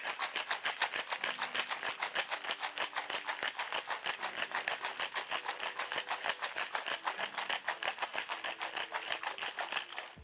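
Ice rattling hard inside a cocktail shaker shaken vigorously, about seven strokes a second, stopping near the end. It is the long, hard shake of an egg-white sour, meant to chill it and build a full foam head.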